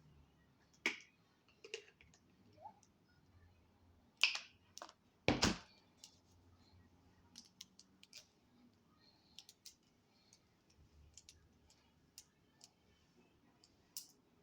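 Scattered light clicks and taps, irregular and a few seconds apart, with a louder knock about five seconds in.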